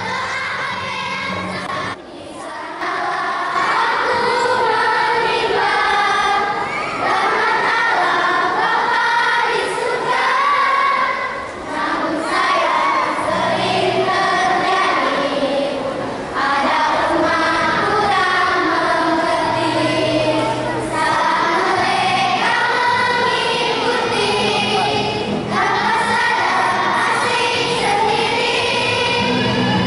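A large group of children singing a song together over instrumental music, in phrases with short breaks between them.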